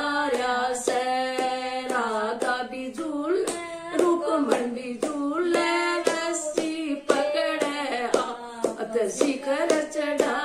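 A woman singing a Haryanvi Krishna bhajan, clapping her hands in time about twice a second.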